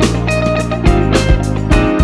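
Background music: a guitar-led band track with a steady beat.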